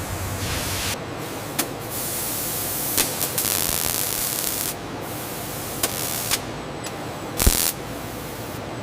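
Hissing industrial machine noise, like air or coolant spray, that cuts in and out in abrupt steps, with a few sharp mechanical clicks and knocks; the loudest knock comes about seven and a half seconds in.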